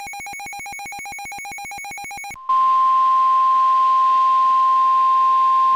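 A rapidly pulsing electronic beep tone, cut off about two and a half seconds in by a loud, steady single-pitch alert tone just above 1 kHz: the 1050 Hz NOAA Weather Radio warning alarm tone that comes before a broadcast warning.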